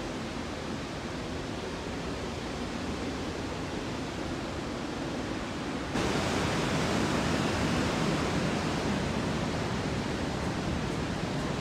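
Steady rushing of a mountain river, a dense, even noise with no distinct events. It becomes abruptly louder about six seconds in and stays at that level.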